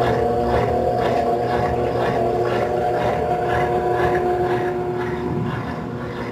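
Colormaq 12 kg washing machine in its spin cycle, a steady motor hum with held tones and a regular pulsing, getting a little quieter near the end. It is the spin-cycle noise the owner takes for a defect.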